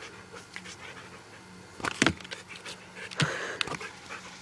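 A dog panting hard as it plays. There is one sharp knock about two seconds in, and two lighter knocks a little over a second later.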